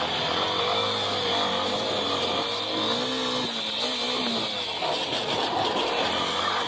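Motorcycle engine running under way, its pitch rising and falling over and over with the throttle.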